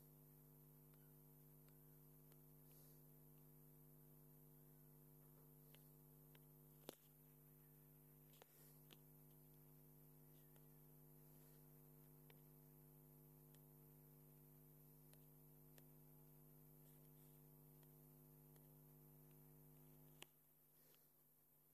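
Near silence with a faint steady electrical hum and a few soft clicks; the hum drops away after a click near the end.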